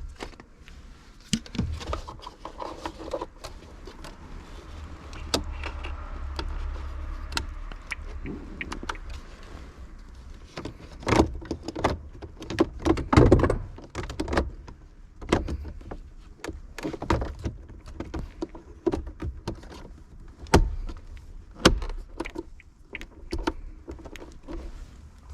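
A series of irregular clicks, knocks and rattles, with a louder cluster of them in the middle and two sharp knocks near the end, over a low rumble.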